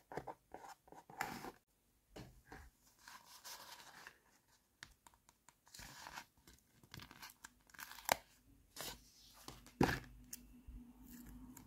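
A paper sticker being peeled off its backing sheet, with the sheet crinkling and rustling in the fingers, broken by a few sharp clicks from handling a hard plastic toy.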